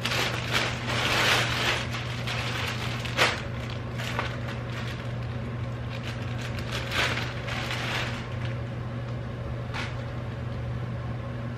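Plastic packaging crinkling and rustling as a package is opened and a garment is unwrapped by hand, in irregular spells, busiest in the first few seconds, over a steady low hum.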